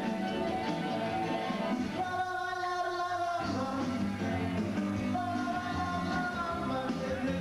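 Party music with singing over a band. The bass and lower parts drop out for about a second, some two seconds in, then come back.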